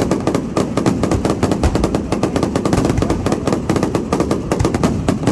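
Fireworks finale: a rapid, unbroken barrage of bangs and crackling explosions, several a second.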